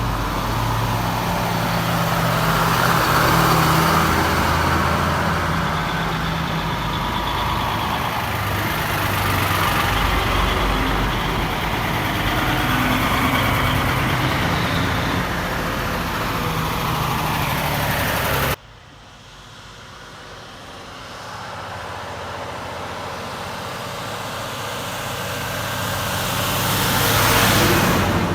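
Vintage Krupp truck two-stroke diesel engines running on the road: a loud truck engine with steady tones, then, after an abrupt cut about two-thirds in, a quieter truck approaching that grows louder and passes close near the end.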